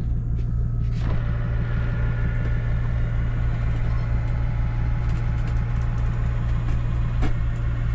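Electric drop-down bunk bed lowering from a camper van's ceiling: its motor whirring from about a second in, over a steady low hum.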